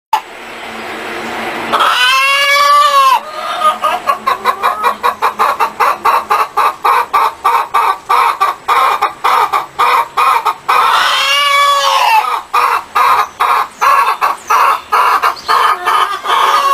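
Hens clucking in a fast, steady run of short calls, several a second. A longer drawn-out call rises and falls about two seconds in, and again about eleven seconds in. A hiss swells over the first two seconds.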